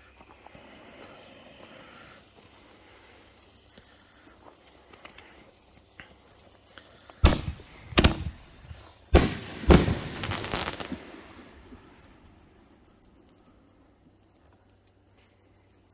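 Three 5-inch 60-gram artillery canister shells fired together: a run of four loud bangs a little past the middle of the clip, the last trailing into crackling. Crickets chirp steadily in a fast, even pulse throughout.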